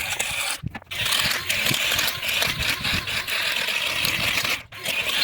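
Small garden tiller running and churning soil: a steady, rattling, noisy sound, broken by two brief sudden gaps, about a second in and near the end.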